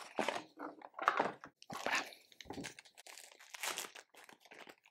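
Packaging crinkling and rustling in irregular short bursts as the accessories are taken out of a box.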